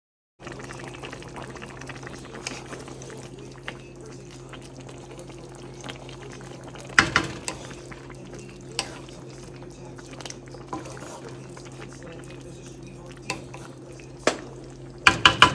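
Metal utensils clinking against a pot and dishes over a steady low hum. There is a sharp clatter about seven seconds in and a quick flurry of clinks near the end.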